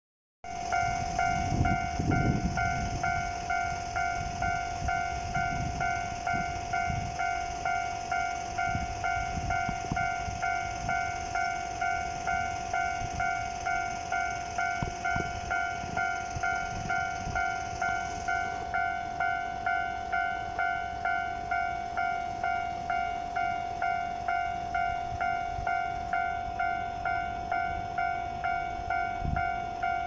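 Japanese railway level-crossing warning bell ringing steadily at about two dings a second, a single repeated bright tone, sounding because a train is approaching the crossing.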